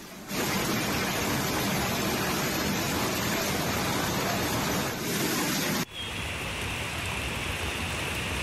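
Fast floodwater rushing and churning in heavy rain: a loud, steady wash of water noise. It cuts off suddenly about six seconds in and gives way to a slightly quieter steady downpour with a faint high hiss.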